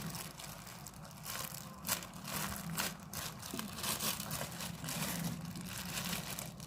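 Plastic packaging crinkling and rustling in fits and starts as a squishy toy is unwrapped by hand, over a low steady hum.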